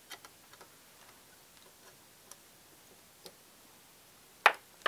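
Scattered faint clicks and taps of hand tools and a printed circuit board being handled on a workbench, with a sharp clack about four and a half seconds in and another just after.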